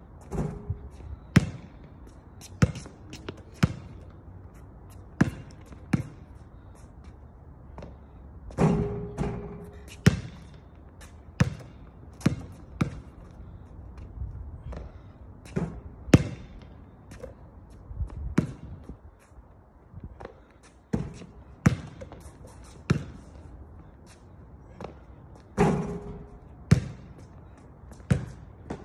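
Basketball bouncing on an outdoor hard court, in irregular single bounces and short runs of dribbles. Three louder impacts ring briefly as shots strike the hoop.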